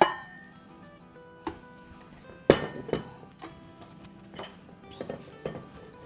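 Metal clanks and clinks from a stainless-steel stand-mixer bowl and its attachment being handled. There is a sharp knock at the start, another about two and a half seconds in, and several lighter clinks after, over background music.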